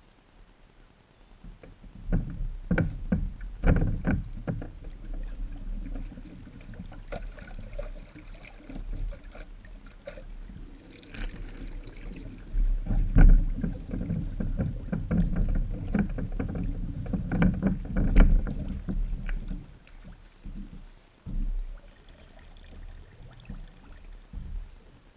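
Knocks and thumps on a plywood boat deck over a low rumble, as a person kneels, shifts and walks about on it. The strongest knocks come about 2 to 4 seconds in, again about 13 seconds in and about 18 seconds in, and they die down near the end.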